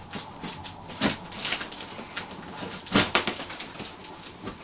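Scissors cutting and scraping through brown packing tape on a cardboard box, with the tape and cardboard rustling in irregular strokes. The loudest stroke comes about three seconds in.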